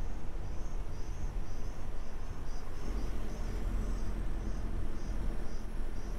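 Vehicle driving on a road, with a steady low rumble of engine and road noise. A short high chirp repeats two or three times a second over it.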